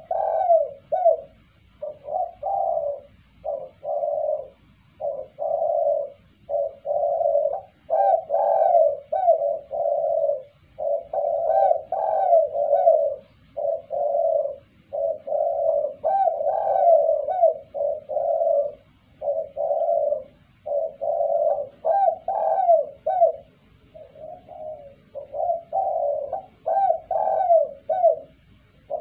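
Spotted dove cooing: a steady run of short, soft-arched coos in phrases of a few notes, with only brief pauses between them.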